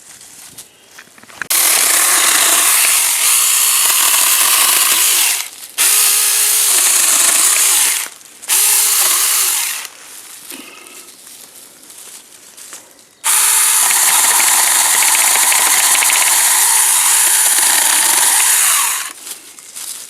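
Saker 4-inch cordless mini chainsaw cutting through wood in four runs, the longest about six seconds near the end. The electric motor's whine drops and recovers as the chain bites into the branch.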